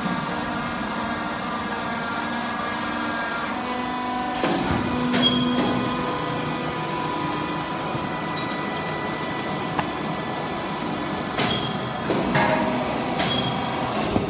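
Hydraulic baler running: a steady hum from its pump motor, with a few sharp metallic clunks and clicks about four to five seconds in and again near the end.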